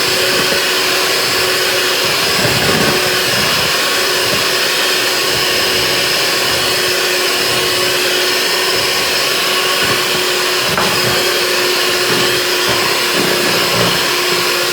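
Electric mixer running steadily at one speed with a constant motor hum, beating whisked eggs and sugar as self-raising flour is added for a Swiss roll sponge.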